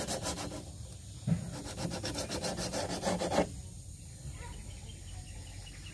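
Sandpaper rubbing back and forth along the sharp edge of a wooden boat beam: quick, even rasping strokes, several a second. The sanding breaks off briefly about half a second in, resumes, and stops a little past halfway.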